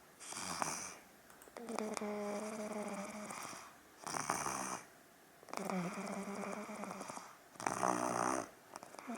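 Two-year-old child snoring in deep sleep: each breath brings a drawn-out, pitched snore, alternating with a shorter breathy, rasping burst, about three breath cycles in all. About eight seconds in, one burst turns into a fluttering rattle.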